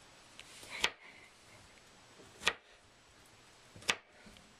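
Knife coming down on a cutting board three times, about a second and a half apart, working garlic cloves.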